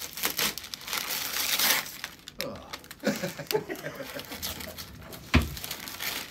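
Wrapping paper being torn and crumpled off a cardboard gift box, in rough ripping bursts, with a single sharp thump a little over five seconds in.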